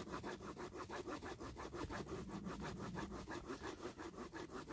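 Small multitool wood-saw blade cutting through a wooden stick by hand, in a steady rhythm of short back-and-forth strokes. The blade is thick for the job, so it advances slowly through the wood.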